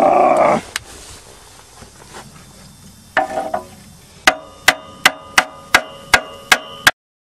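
Hammer blows on a seized alternator in a car's engine bay to free it: eight sharp, ringing metal strikes in steady succession, about two and a half a second, starting a little past the middle.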